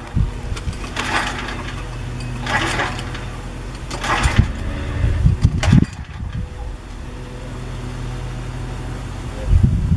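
Small engine running steadily with a low hum, with a rushing noise that swells and fades about four times.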